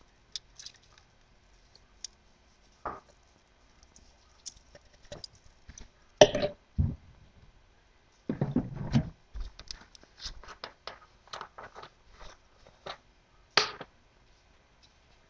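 A seasoning shaker bottle being shaken and tapped out over chicken on a foil-lined tray until it is empty: scattered clicks and taps, a louder knock about six seconds in, a rustle around eight seconds, a run of quick ticks, and another sharp knock near the end.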